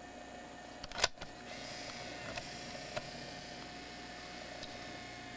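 Motorized cassette eject of a Video8 camcorder running slowly: a sharp click about a second in, then a faint whir of the eject motor with a couple of small clicks.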